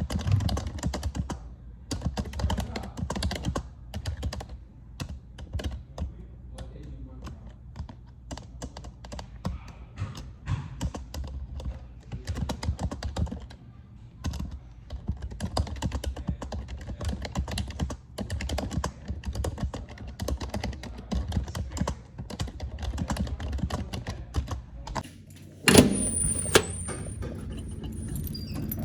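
Typing on a computer keyboard: a long, irregular run of quick key clicks. About three seconds before the end, the clicking gives way to a sudden louder noise with a thin, high whine.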